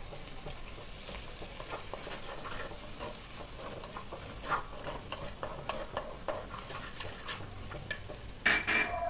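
Wooden spatula stirring and scraping onions, green chilies and curry leaves frying in coconut oil in a heavy black pot, with a soft sizzle under irregular scraping clicks; a few louder scrapes near the end.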